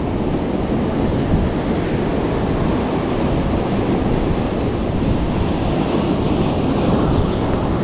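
Steady wash of sea surf, with wind rumbling on the microphone.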